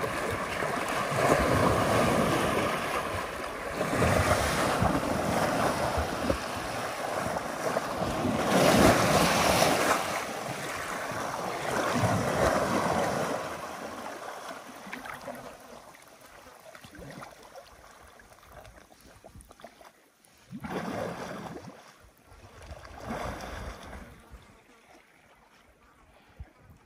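River water churning and splashing as an African elephant wades and swims through it, in repeated loud surges over the first half, then quieter lapping with two short surges about three-quarters through.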